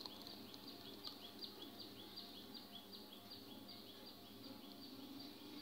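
Faint, high chirping repeated about three times a second, over a low steady hum.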